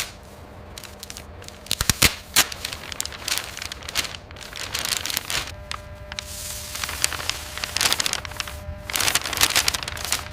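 Irregular sharp clicks and taps with crackling between them.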